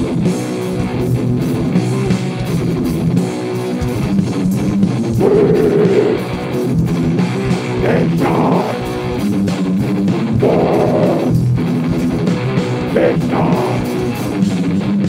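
Heavy metal band playing live: electric guitar and bass over a drum kit, loud and continuous, with a few louder swells in the guitar.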